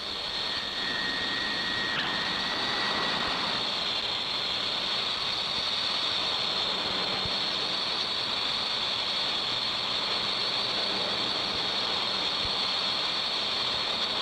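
Steady, loud rushing roar of fast-moving air, with a thin high whistle early on that stops about three seconds in.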